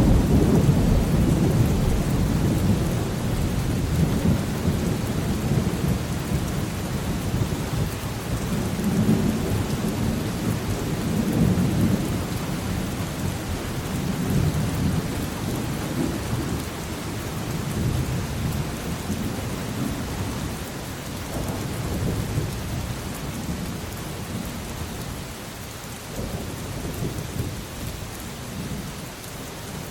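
Thunderstorm: steady rain with long rolls of deep thunder rumbling underneath, loudest at first and slowly dying away.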